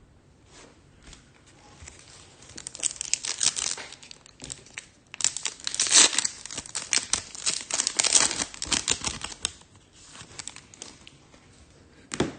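Foil wrapper of a Topps Chrome F1 trading-card pack being torn open and crinkled: a short spell of crinkling, then a longer, louder one from about five to nine and a half seconds in. A single sharp tick comes just before the end.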